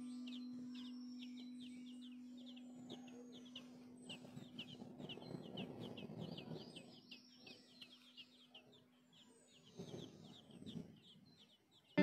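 Thin, high chirps of nestlings begging, repeated several times a second, over the fading tail of a held low music note; a soft rustle around the middle.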